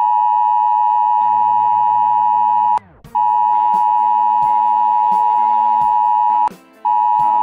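Emergency broadcast attention tone: a loud, steady tone near 1 kHz, cut twice by short gaps, the first with a quick downward sweep. Faint music with light percussion runs beneath.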